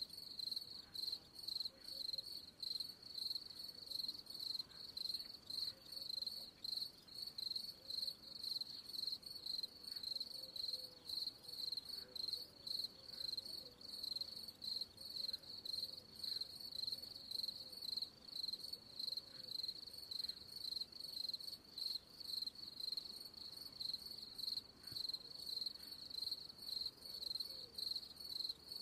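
Cricket chirping in a steady, even rhythm: a high-pitched pulsing chirp repeating without a break.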